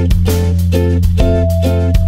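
Background music: plucked guitar-like notes in a quick, even rhythm over a steady bass line.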